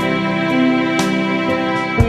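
Background music: soft, slow instrumental with plucked guitar-like notes and sustained tones.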